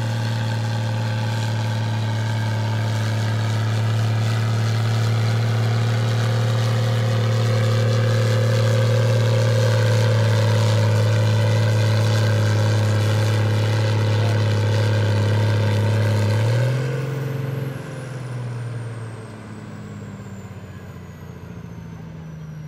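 Case IH 1455 tractor's diesel engine under full load pulling a sled: a steady heavy drone that builds slightly in loudness. About 17 seconds in it drops off abruptly as the pull ends and falls to a lower, quieter running note, with a thin high whine slowly falling away.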